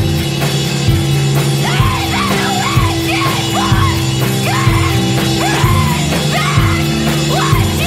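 Loud dance-pop music with a steady drum beat and sustained bass, and a short high figure that rises and falls, repeating in a quick rhythm over it.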